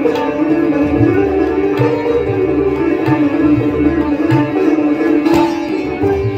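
Sitar playing a melodic line in Hindustani classical style, its strings ringing, accompanied by tabla with deep bass strokes that recur about once a second.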